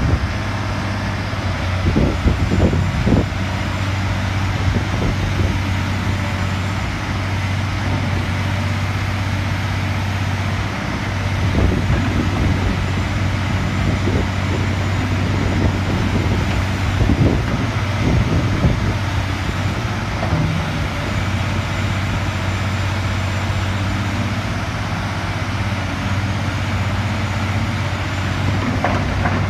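Caterpillar 345C L hydraulic excavator's diesel engine running steadily while the boom and bucket are worked, with occasional knocks and clunks as the arm moves.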